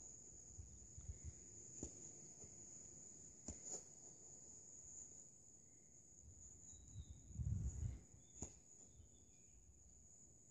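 Steady high-pitched chirring of insects, crickets, in summer grass. A few faint sharp knocks and two brief low rumbles of wind or handling on the microphone sound over it.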